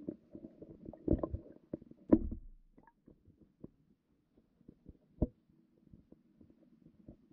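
Muffled low rumbling with irregular knocks and thumps, heard underwater beneath the ice; the loudest thumps come about one and two seconds in, and another a little after five seconds.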